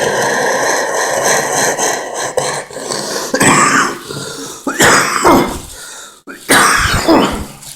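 A sick man coughing and clearing his throat: one long rasping hack, then three separate coughs about a second and a half apart.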